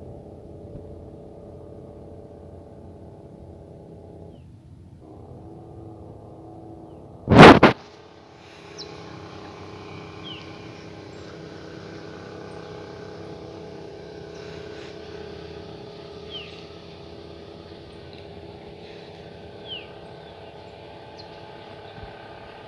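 Heavily loaded Hino 700 truck's diesel engine braking on its engine (jake) brake down a steep grade: a steady drone of several tones. A sudden, very loud burst of noise cuts in briefly about seven seconds in.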